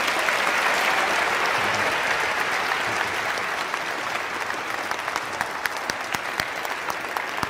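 Audience applauding: dense clapping that starts right away and slowly thins a little.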